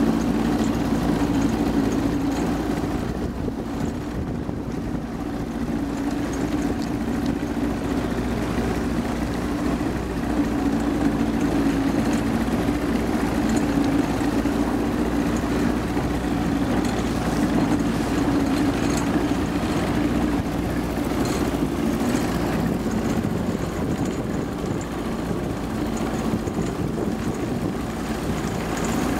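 Boston Whaler's engine running steadily at low speed, an even drone.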